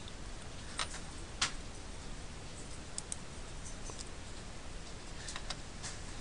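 Computer mouse buttons clicking several times over a steady background hiss, the two loudest clicks about a second apart early on and a close double click about three seconds in, with a few lighter clicks near the end.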